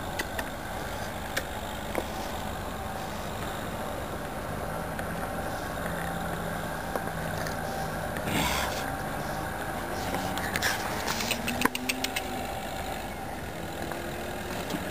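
Steady engine hum, like a motor vehicle idling, with a few scattered clicks and knocks, the strongest about halfway through.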